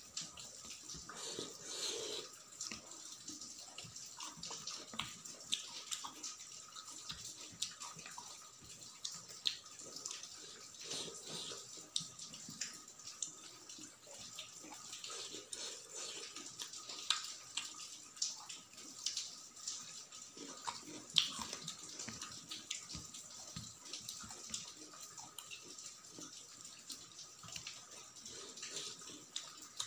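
Close-miked eating sounds: wet chewing and mouth clicks while rice is eaten by hand, with fingers squishing and mixing rice on a steel plate. A faint steady high whine sits behind them.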